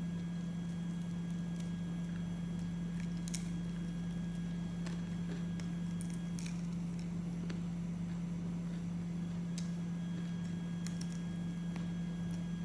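A steady low hum, the loudest sound, under scattered faint clicks and crackles of chicken being pulled apart by hand and bitten.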